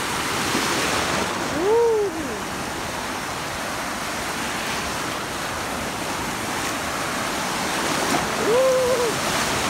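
Small waves breaking and washing over the shallows: a steady rush of surf that swells about a second in and again near the end. A person's voice gives two short exclamations, one about two seconds in and one near the end.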